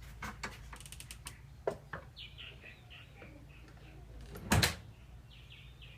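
A door being pulled shut by a Stanley hydraulic door closer, ending in a loud thump as it latches about four and a half seconds in. A few light clicks come before it.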